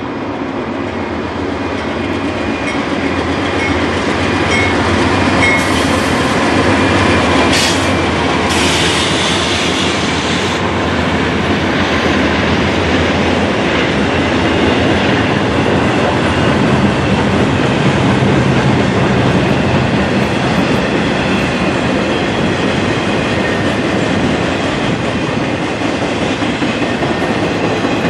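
Norfolk Southern freight train passing at speed: the GE Dash 9-40CW and EMD SD40E diesel locomotives go by with their engines running, then double-stack intermodal container cars roll past with steady wheel rumble and clickety-clack over the rail joints. The sound builds over the first few seconds, with a few seconds of high-pitched hiss about a third of the way in.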